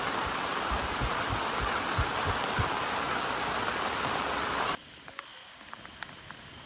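Heavy rain in a dense, even hiss with scattered low thuds. Just before five seconds in it cuts off abruptly to a much quieter background of lighter rain, with scattered single drops ticking.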